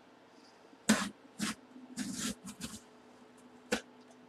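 Box cutter slicing through packing tape and scraping along a cardboard box, in a handful of short separate strokes.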